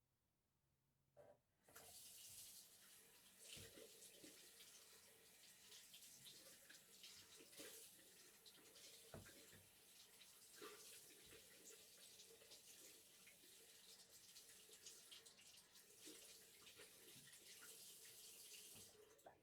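A short knock about a second in, then a bathroom tap runs steadily into the sink while hands are washed under it, with irregular splashes and knocks from the hands. The water cuts off just before the end.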